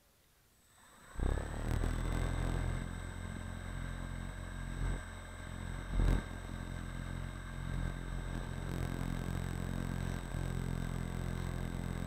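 The motor of a small ride-on vehicle starts about a second in and runs steadily, with a low hum, a thin high whine and a noisy rush over the microphone.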